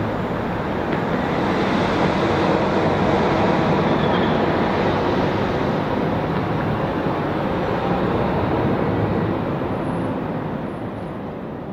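Boeing 737 jet engines running as the airliner rolls down the runway: a loud, steady roar that builds over the first few seconds and then slowly fades as the jet moves away.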